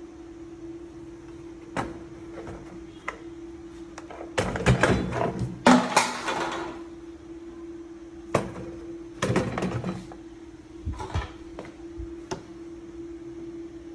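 Irregular knocks, clatters and rustles as a cardboard box and the plastic and metal parts of a row rice seeder packed in it are handled, busiest in two spells in the middle, over a steady low hum.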